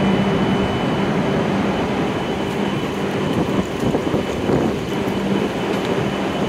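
Platform ambience beside a stationary W7-series Shinkansen train with its doors open: a steady low hum under an even wash of noise.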